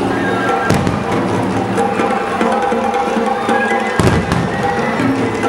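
Orchestral-style show music with held tones, broken by two firework shell bursts: a sharp bang just under a second in and a louder, rumbling one about four seconds in.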